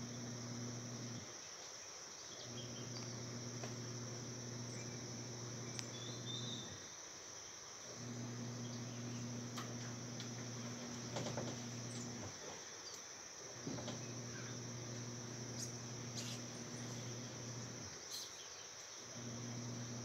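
Steady high-pitched chorus of crickets, over a low hum that cuts out for about a second four times, with a few faint clicks.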